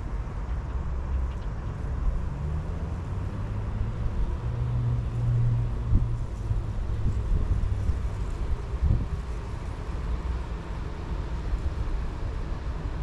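Strong wind buffeting the microphone, a steady low rumble. A low hum swells briefly about four to six seconds in.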